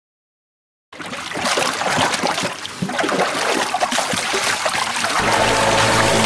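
Water splashing and sloshing in a fish transport tank as a landing net scoops out thrashing pike, starting suddenly about a second in. Music comes in near the end.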